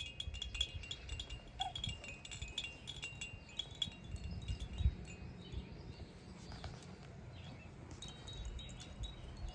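Small bells in a puppy's jingle toy jingling in quick irregular clusters, busiest in the first few seconds and again near the end, over soft low thumps.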